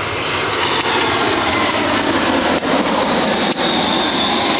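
Loud, steady engine roar, with a few light metallic clicks from hand tools working screws on a steel bike rack.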